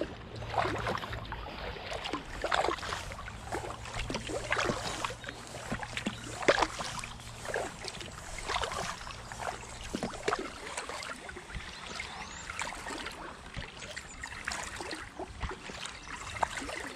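Kayak paddle blades dipping into calm water, with splashes and drips about once a second. A low steady hum sits underneath and fades out about ten seconds in.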